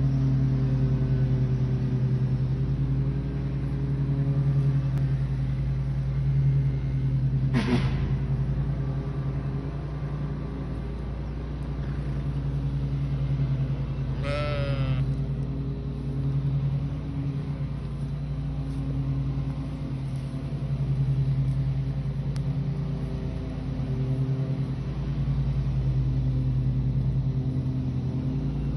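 A steady low motor drone throughout, with a sheep bleating twice: a short call about eight seconds in and a longer, wavering bleat about halfway through.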